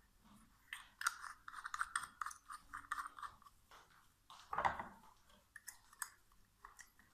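Plastic clicking and scraping as a white plastic lamp holder's threaded cover is screwed onto its base by hand: a quick run of small ratcheting clicks, then a louder single scrape about halfway through, followed by a few lighter clicks as a bulb is fitted into the holder.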